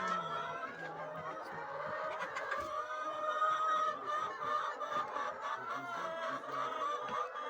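A flock of laying hens clucking and calling together, a continuous chorus of many overlapping voices.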